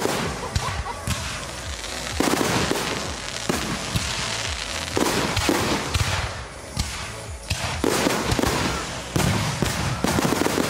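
Fireworks display: loud bursts going off every second or two, with crackling in between.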